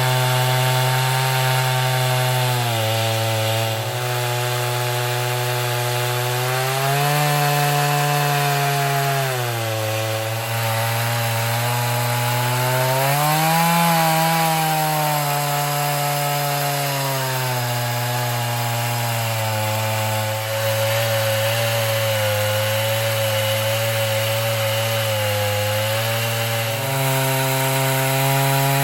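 Two-stroke chainsaw on an Alaskan chainsaw mill running at high revs while ripping along a pine log. Its pitch sags and recovers several times as the chain loads up in the cut.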